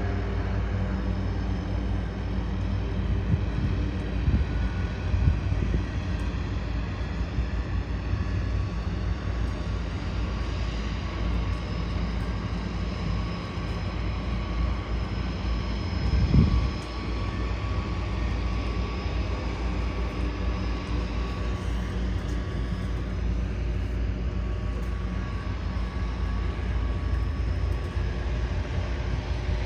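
Floatplane's propeller engine droning steadily as it takes off across the water, over a low rumble, with a single thump about sixteen seconds in.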